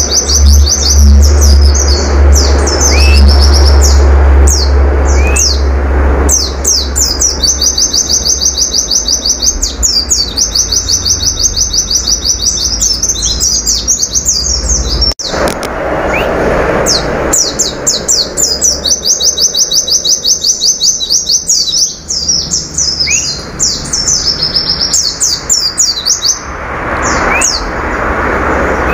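Caged white-eye (pleci) singing a long, rapid-fire song of fast repeated high notes and trills, broken by short pauses. A loud low hum runs underneath and stops abruptly about halfway through.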